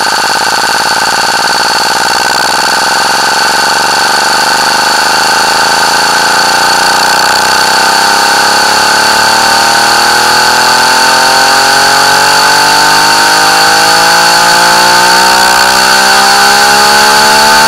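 Sound samples on the Thirty Dollar Website sequencer retriggered in a loop at 11550 BPM, blurring into a loud, steady, harsh buzz that imitates a chainsaw engine, with fainter tones slowly rising beneath it.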